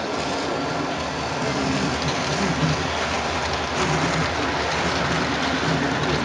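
HO-scale track cleaning train, pulled by two SD9 locomotives, running on the rails: a steady rushing noise of its wheels, cleaning pads and rollers on the track, with a low hum.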